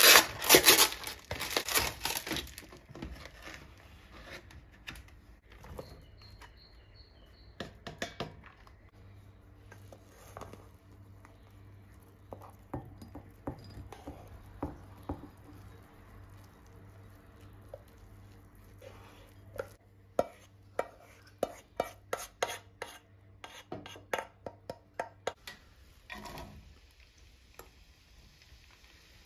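Kitchen handling sounds: the plastic film of a food tray crinkled and torn open, loudest at the start, then light clinks, knocks and taps of utensils against a pot and dishes over a low steady hum, with a run of sharp taps about two a second later on.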